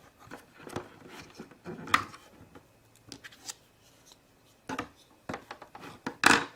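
Plastic toy playset pieces being handled: scattered light clicks, taps and rubbing, with a near-quiet pause around the middle and a sharper knock near the end.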